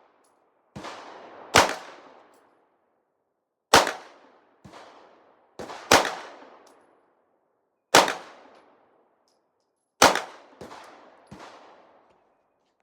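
Glock 45 9mm pistol firing single, slow-paced shots, about one every two seconds, each with an echoing tail. Fainter shots fall between them.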